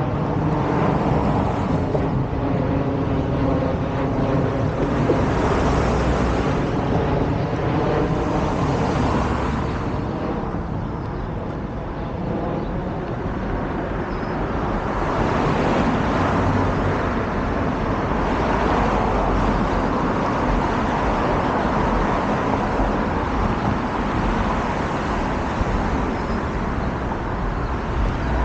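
Street traffic: cars passing one after another. A vehicle engine's steady hum sits under it for the first few seconds.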